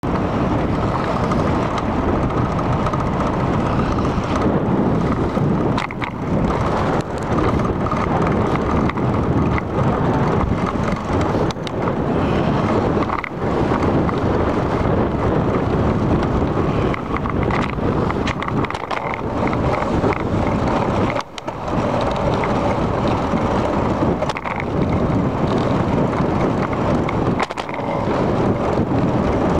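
Steady noise from a bicycle ride on a paved path, with tyres rolling on the asphalt and wind on the microphone, broken by a few brief dips.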